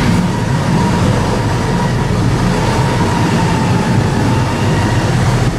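Steady machinery drone: a low hum with a faint thin whine above it, unchanging throughout, in the room where a large plastic pipe is being slowly compressed in a testing machine.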